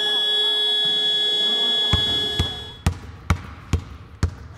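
A scoreboard buzzer sounds a steady electronic tone for about three seconds, marking the end of the quarter. From about two seconds in, a basketball is dribbled on a hard floor, about two bounces a second.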